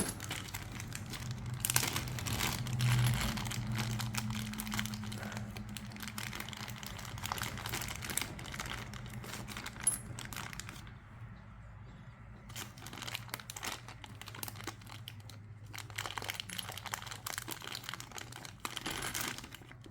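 Crinkling of packaging, with clicks of small metal hardware such as washers and bolts being handled. A low steady hum runs underneath through the first half.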